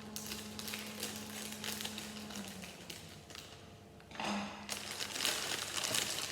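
Plastic polybag crinkling and rustling as it is handled and opened, with scattered small crackles first and a louder, denser stretch of crinkling from about four seconds in.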